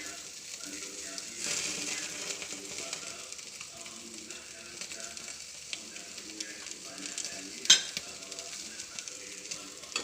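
Spice-basted fish sizzling on a grill, a steady frying hiss that swells for a moment near the start. A single sharp tap, like a utensil against the pan, comes about three-quarters of the way through.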